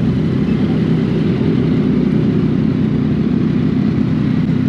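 Motorcycle engine running steadily, with no change in revs.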